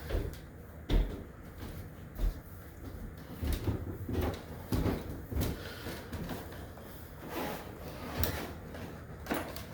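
A drawer being opened, rummaged through and shut: a string of irregular knocks and thumps, the sharpest about a second in.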